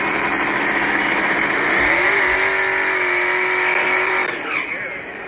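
Drag car engine running at high revs, loud and steady. It rises in pitch about two seconds in and holds there, then drops off with a falling tone near the end.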